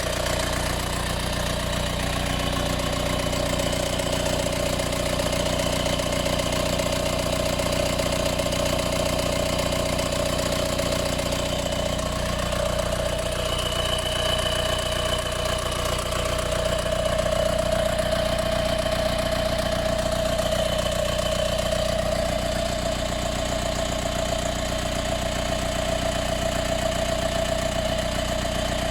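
Mercedes B180 CDI's four-cylinder diesel running warm, with a steady rattling noise like an extra motor or fan running, the noise that appears after a warm start. A steady mid-pitched tone in the sound grows a little stronger about halfway through.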